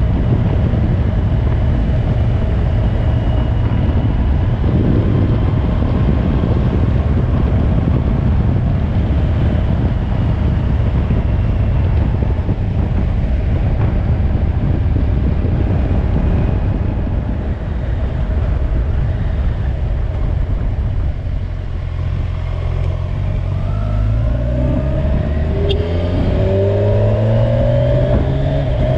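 Kawasaki Ninja 1000SX inline-four engine running at a steady cruise under heavy wind noise, easing off about two-thirds of the way through, then accelerating near the end with the engine pitch climbing in several repeated rises as it shifts up through the gears.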